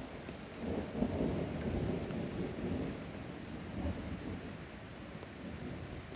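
A roll of thunder rumbling over steady rain. It swells about a second in and fades away over the following few seconds.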